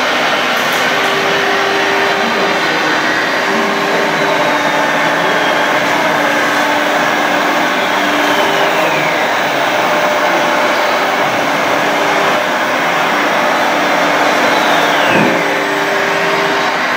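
Steady electric whirring of a scale RC hydraulic excavator's pump and motors as it digs, with a few slow falling whines.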